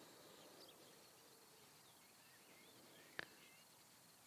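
Near silence: quiet background hiss with faint, scattered high chirps and a single sharp click about three seconds in.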